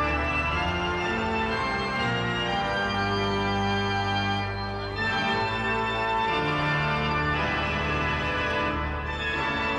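Punk rock band playing loud, with no singing: sustained chords over a heavy low end, the chord changing every second or two.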